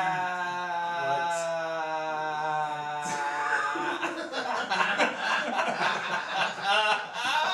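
A man's voice holds one long, steady drawn-out note for about three seconds, then gives way to laughter from two men.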